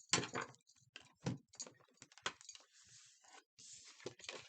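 A deck of tarot cards shuffled by hand: irregular quick clicks and slaps of the cards, then a longer rustling riffle in the second half.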